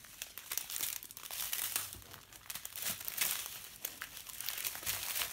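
Crinkling and crackling of a long strip of sealed plastic packets of diamond-painting drills being handled and leafed through, irregular and somewhat fuller in the second half.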